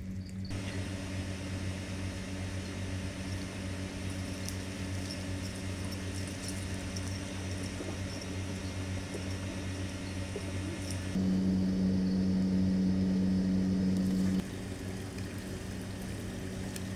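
Steady low mechanical hum, like a motor or fan. It gets abruptly louder for about three seconds in the middle, then drops back.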